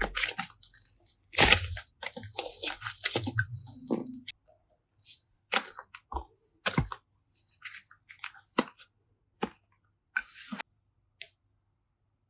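Slime being squished and pressed by hand, with crackling, crunchy squishes and clicks that come thick and fast at first, then thin out after about four seconds to scattered single clicks.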